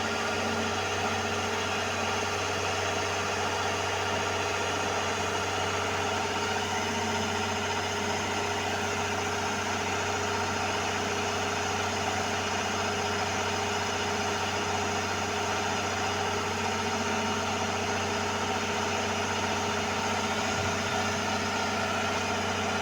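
Combine harvester engine running at a steady speed, a constant machine drone that does not change.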